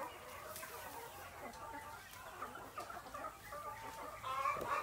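A flock of hens clucking: many short, overlapping calls, a little louder near the end.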